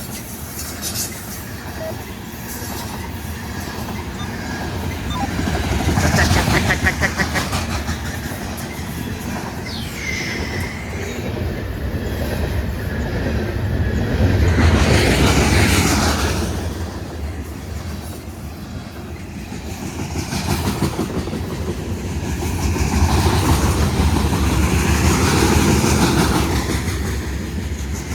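Loaded coal train rolling past: steel wheels on rail with a steady clickety-clack, the roar swelling and easing in waves as the cars go by.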